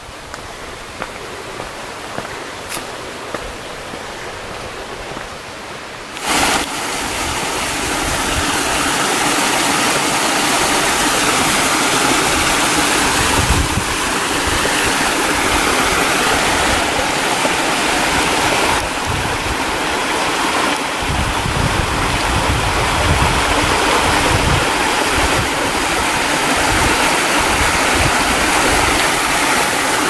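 Light steps on a dirt trail at first. About six seconds in, a creek and small waterfall take over: water rushing and splashing over rocks, loud and steady.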